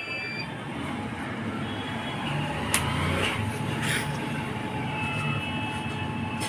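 Inverter welding machine switched on and running on direct mains power, giving a steady hum with a couple of short clicks.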